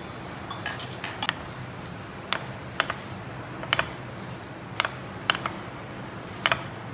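Metal utensil knocking and scraping against a nonstick frying pan while tossing noodles: a quick cluster of ringing clinks about a second in, then single knocks every second or so.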